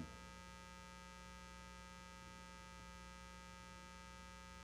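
Near silence with a faint, steady electrical mains hum in the sound system.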